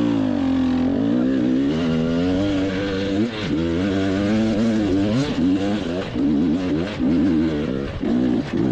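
GASGAS EC 300 two-stroke enduro motorcycle engine, close up, its revs rising and falling over and over as the throttle is worked. The blips turn shorter and choppier, with brief dips, in the last few seconds.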